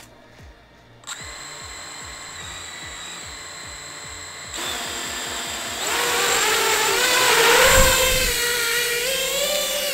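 5-inch FPV racing quadcopter (iFlight Nazgul 5) with brushless motors arming and spinning at idle, starting about a second in as a steady whine. It throttles up in steps to a louder, wavering, rising whine as it lifts off the pad, loudest near takeoff with a brief low rumble of prop wash.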